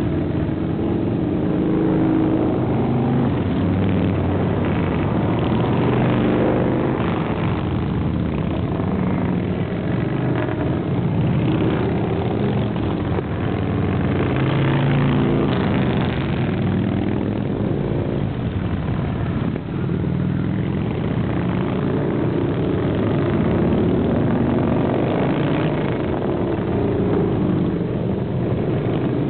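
A steady stream of custom choppers and touring motorcycles with big V-twin engines riding past one after another. Their engines rise and fall in pitch as each bike goes by, with no break.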